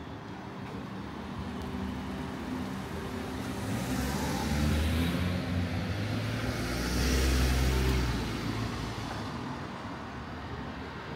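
Road traffic: two motor vehicles pass close by one after the other, the first about four seconds in and a louder one about seven seconds in, engine hum and tyre noise rising and fading away.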